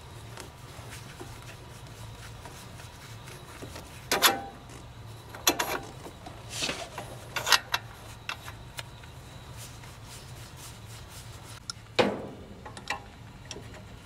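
Scattered sharp metal clinks and knocks with rubbing between them as an adjustable wrench and gloved hands work at the copper pipe fitting on an air-conditioner compressor, over a steady low hum.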